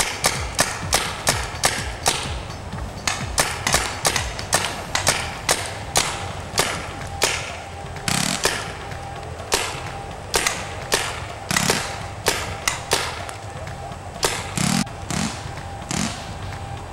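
Paintball markers firing: a long, irregular string of sharp pops, about two to three a second, sometimes several in quick succession.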